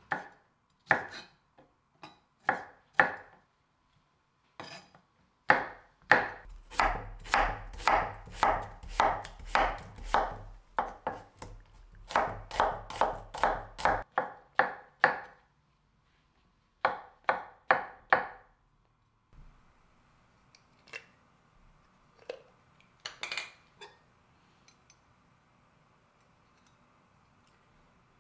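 A chef's knife slicing vegetables, button mushrooms among them, on a wooden cutting board: runs of sharp cuts, about two a second, with short pauses between the runs. In the last third the cutting stops and only a few light knocks remain.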